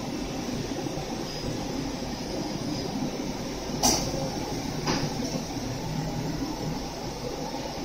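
Belt conveyors and IR dryer of a screen printing machine running with a steady mechanical rolling hum as they carry a glass panel. Two sharp clicks, about a second apart, come near the middle.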